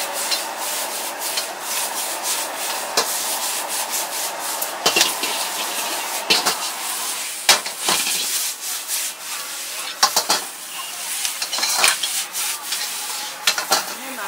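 Noodles stir-frying in a wok over a high gas flame: a steady sizzle and burner hiss, with a metal ladle scraping and knocking against the wok again and again.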